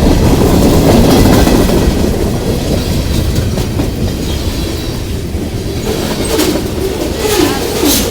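CSX freight train's cars rolling past, a loud steady rumble of wheels on the rails, easing a little after the first couple of seconds.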